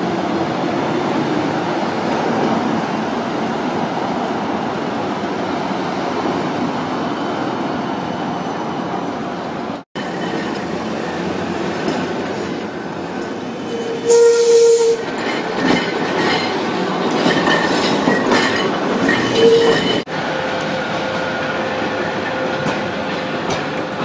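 Trams running on street track amid passing city traffic, in three shots joined by abrupt cuts about ten and twenty seconds in. About fourteen seconds in a loud, shrill sound lasts about a second, and a shorter one comes near nineteen seconds.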